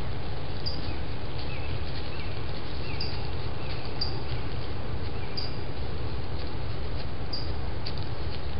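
Outdoor ambience: a steady low rumble and hiss, with short high chirps every second or two and a few lower, falling chirps in the first few seconds.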